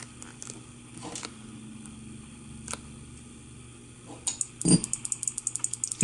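Buttons of an old Carefree Access Systems door-entry keypad pressed with faint clicks. Near the end the unit's internal door relay switches with one loud click as it unlocks, followed by a quick run of light ticking.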